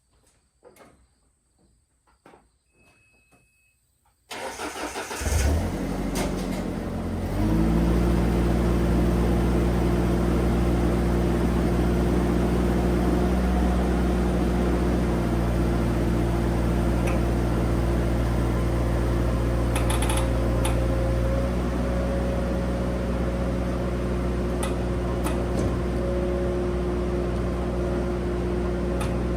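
Engine of a JLG man lift cranking and starting about four seconds in, catching a few seconds later and then running steadily. A few faint clicks come before it.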